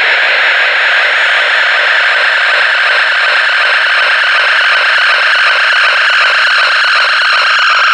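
Loud, steady, harsh distorted noise like static, with a hissy band that sinks slightly in pitch over the stretch.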